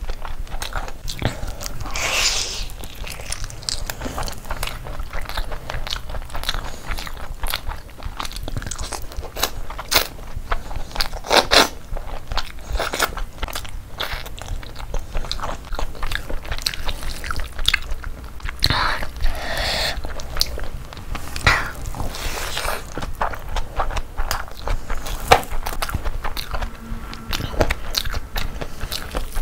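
Close-up chewing of big mouthfuls of chicken biryani eaten by hand: a dense run of wet mouth clicks, smacks and squelches.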